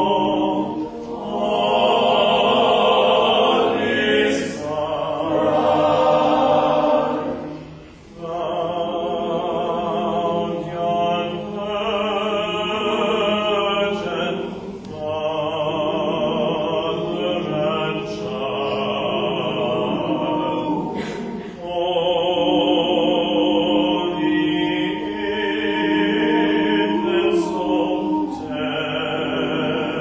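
Male a cappella choir singing in harmony, in long held phrases with short breaks between them.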